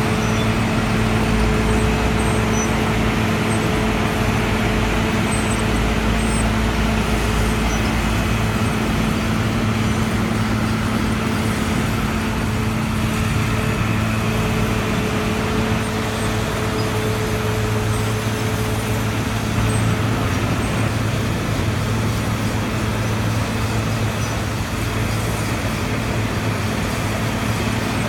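Asphalt milling machine at work, its diesel engine running at a steady, constant pitch over a continuous dense grinding noise as it cuts up old pavement.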